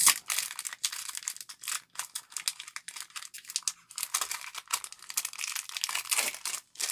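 Foil wrapper of a Pokémon Silver Tempest booster pack crinkling and tearing as it is ripped open along its top seam and peeled apart, a dense run of crackles, loudest right at the start.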